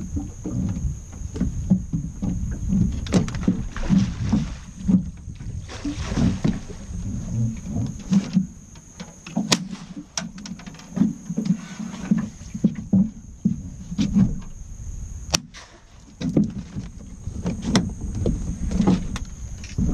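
Water slapping against the hull of a flat-bottom boat in irregular low pulses, with the knocks and sharp clicks of gear being handled on the deck.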